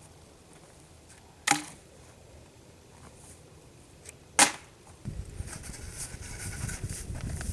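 Two sharp wooden knocks about three seconds apart, typical of firewood being chopped or split for a campfire. About five seconds in, a steady low rumbling noise sets in.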